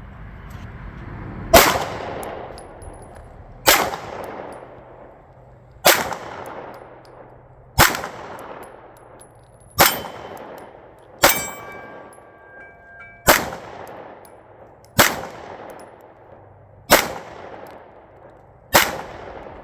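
Pistol shots fired at a slow, steady pace, about one every two seconds, ten in all, each with a fading echo.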